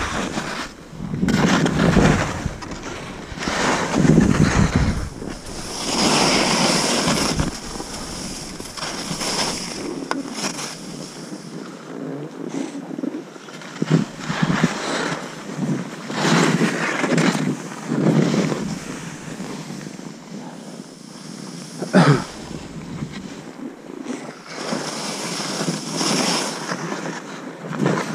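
Skis hissing through deep powder snow in repeated swells, one with each turn, with wind buffeting the camera microphone, heaviest early on. A single sharp knock late on.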